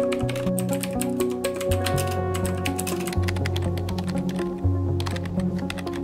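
Fast typing on a computer keyboard: a rapid, irregular run of key clicks. Background music with held notes and a bass line plays under it.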